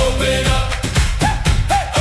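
Upbeat electronic pop music with a steady dance beat, in an instrumental passage without vocals.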